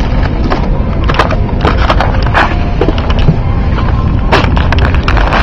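Handling noise from a handheld camera being swung about: a steady low rumble with many sharp knocks and rubbing sounds scattered through it, inside an airliner cabin.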